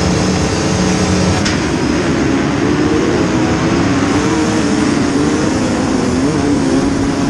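Motocross bike engines running and revving, their pitch stepping up about a second in and then wavering up and down, with a brief sharp click about one and a half seconds in.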